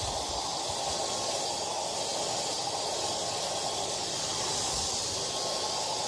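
Hair dryer running steadily: an even rush of blown air with a faint steady whine underneath.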